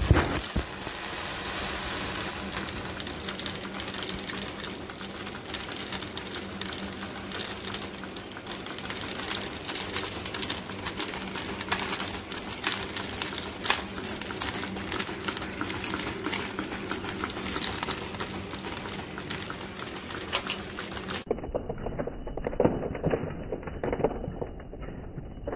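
Mini DC motor shaking a perforated cardboard sieve tray: a steady motor hum under fast, continuous rattling and clicking as small clay balls bounce on the cardboard and fall through the holes. Near the end the rattle turns duller and muffled.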